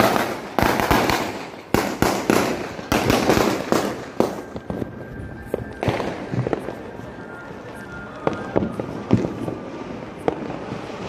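Firecrackers exploding: a rapid, dense run of sharp cracks and bangs for about the first four seconds, then separate single bangs every second or so.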